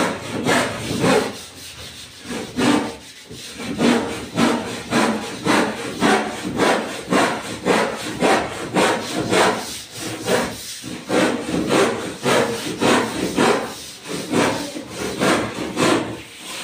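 Hand sanding of a wooden door panel with sandpaper: steady back-and-forth rubbing strokes, roughly three every two seconds.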